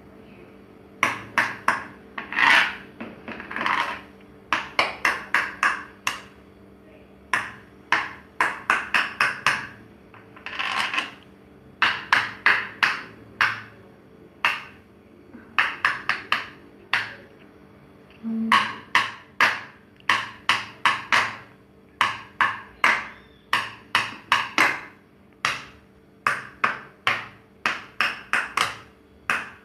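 Thin wooden sticks tapping the plastic bottle caps glued onto a sound-picture collage board, in quick runs of sharp clicking strikes broken by short pauses.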